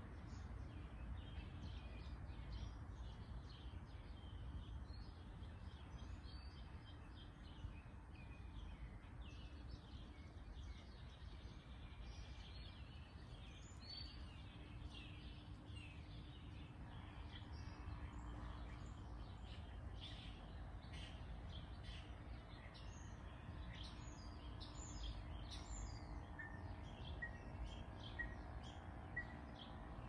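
Many small birds chirping and calling in quick, overlapping short notes over a low steady rumble. Near the end one bird gives a run of about five short, evenly spaced notes.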